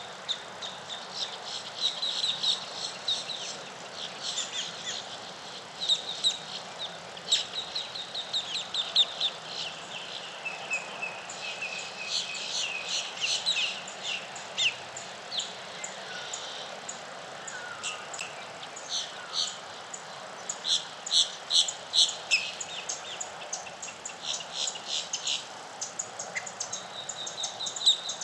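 Wild birds singing in a dawn chorus: many short, quickly repeated chirps and trills from several birds, over a faint steady background hiss.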